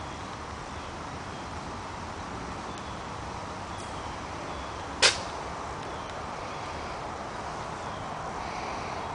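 A pet sneezing once, a single short, sharp sneeze about five seconds in, over steady background noise.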